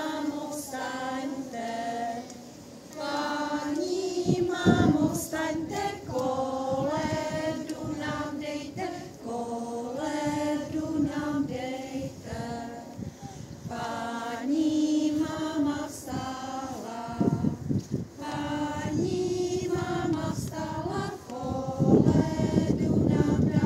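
Kindergarten children and their women teachers singing a Czech Christmas carol together, unaccompanied, in held phrases. A low rumble breaks in a few times and is loudest near the end.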